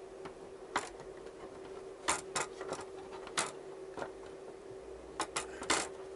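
Plastic rear trim panel of a Yamaha XJ900S clicking and knocking against the bodywork as it is worked into place by hand, in scattered taps with a small cluster about two seconds in and another near the end, over a faint steady hum.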